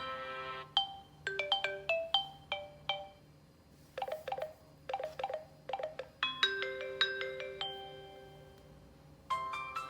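Stock Samsung Galaxy J3 (2016) ringtone: a short melody of struck, quickly fading notes, with a quick flurry of notes in the middle and a held chord that dies away. A held tone from the previous ringtone ends just after the start, and the next ringtone begins near the end.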